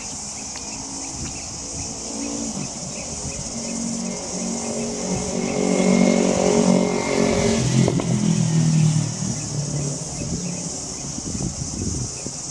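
A motor vehicle's engine passing close by: it grows louder, peaks in the middle, drops in pitch as it goes past about eight seconds in, then fades. A steady high hiss sounds throughout.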